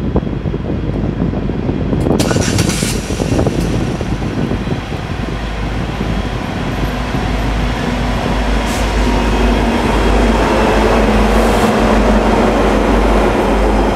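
Norfolk Southern diesel freight locomotive approaching and passing close by, its engine running with a steady low drone. It gets louder toward the end as the locomotive draws level.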